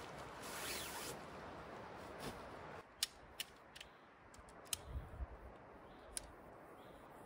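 Tent fabric rustling as it is handled, then, from about three seconds in, a series of sharp clicks as sections of a tent pole snap together.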